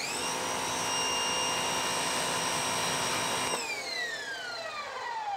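Westinghouse ePX3000 electric pressure washer starting up with a quick rising whine and running steadily, its motor and pump whining over the hiss of the narrow zero-degree nozzle jet. About three and a half seconds in it cuts off and the motor winds down with a long falling whine.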